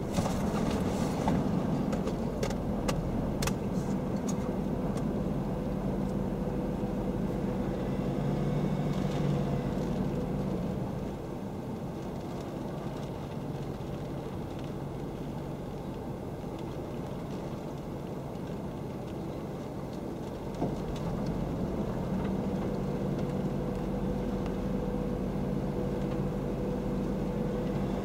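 Car engine running steadily, a low hum that eases off for about ten seconds in the middle and then comes back, with a few sharp clicks in the first few seconds.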